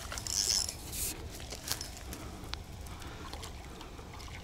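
Spinning reel cranked in a short buzzy burst about half a second in, reeling in a trout that has taken a spoon lure. Faint scattered clicks follow.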